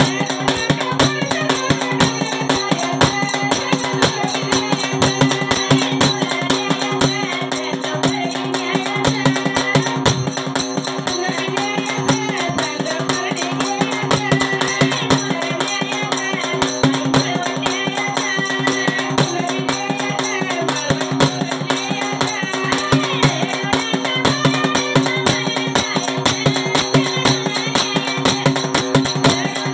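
Live Marathi folk devotional music: singing through a microphone over a fast, steady beat of drum and small hand cymbals.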